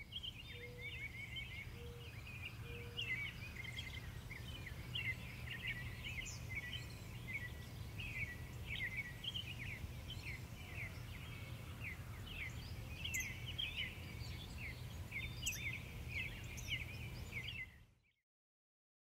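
Small birds chirping and twittering in quick, overlapping short notes over a low steady rumble; everything cuts off to silence near the end.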